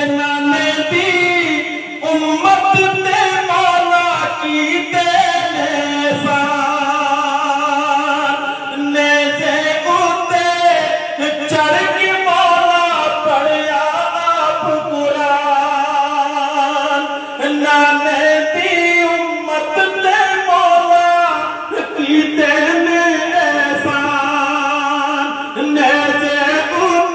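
A man singing a Punjabi devotional song in praise of Imam Hussain, unaccompanied, in long drawn-out notes with a wavering pitch.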